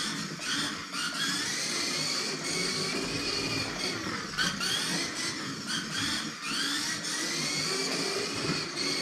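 Kyosho Mini-Z MR-03 RWD 1/28-scale RC car's small electric motor whining as it laps the track, its pitch rising and falling again and again as the throttle is opened and let off.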